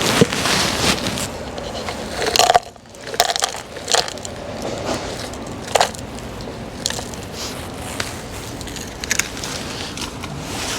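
Plastic packet of dried crickets and nuts crinkling and crackling as it is handled and emptied, with a few sharper, louder rustles.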